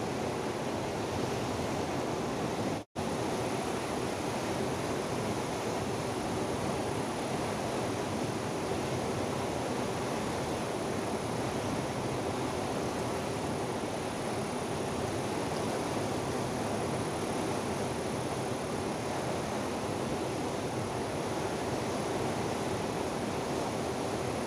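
Steady rushing of a fast river running over rocks and boulders. The sound cuts out completely for an instant about three seconds in.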